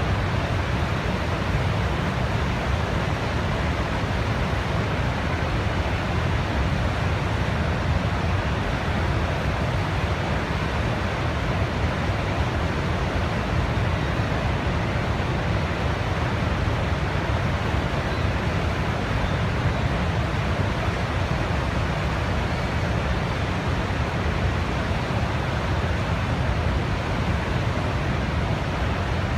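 Steady, unchanging rushing noise from a nature soundscape, heaviest in the low end, with no separate events.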